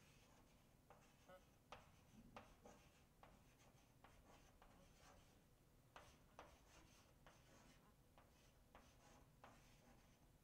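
Chalk writing on a chalkboard: an irregular run of faint taps and short scratches as letters are written.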